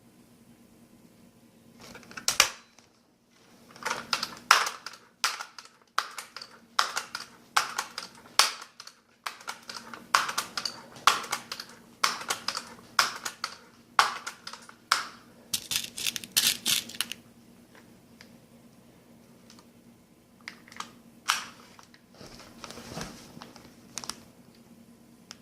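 Daisy PowerLine 880 multi-pump air rifle being worked between shots: a long run of sharp mechanical clacks, about two a second, typical of the forearm pump lever being stroked to build pressure. A few scattered clicks follow near the end.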